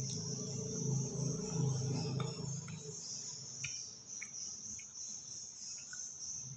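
Steady high chirring of insects. For the first three seconds it sits under a man's low closed-mouth 'mmm' hum as he eats, and a few short crunches follow as he chews raw green mango.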